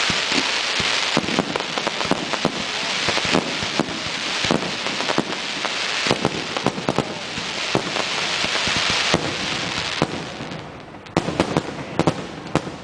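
Fireworks display: aerial shells bursting in a steady stream of sharp bangs over a continuous crackling hiss. About ten seconds in the crackle dies down, and a quick cluster of bangs follows near the end.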